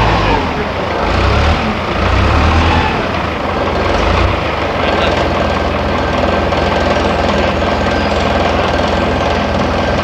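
Engine of a yellow farm loader running, uneven and lumpy for the first four seconds or so, then settling into a steady run.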